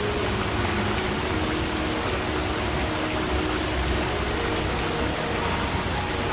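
Forest stream water flowing steadily, a continuous rushing with faint gurgling tones.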